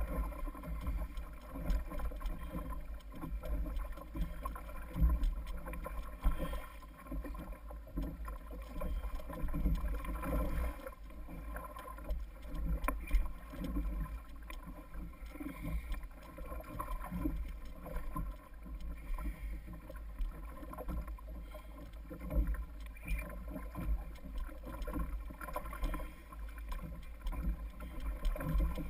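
Water rushing and slapping along a kayak's hull as the boat is pulled through the chop by a hooked tarpon, with wind rumbling on the microphone.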